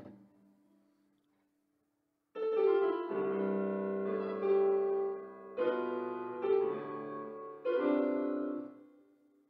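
Portable electronic keyboard played with a piano voice: slow held chords, a new chord every second or so. The playing begins about two seconds in, after a short quiet while an earlier note dies away.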